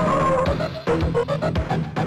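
Amiga demo music played on the Amiga's four-channel sample-based sound chip. A steady beat of drum hits runs under a bass line and short, quick melody notes, and a held lead note ends about half a second in.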